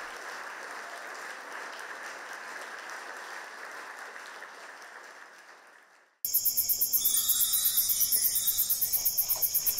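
Audience applause, slowly fading out over about six seconds. After a sudden cut, a loud, fast, high chirping starts, about six pulses a second.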